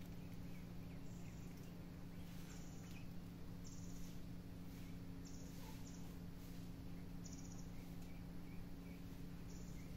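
Faint outdoor background: a steady low hum, with short high buzzy chirps every second or two and a few small chirps.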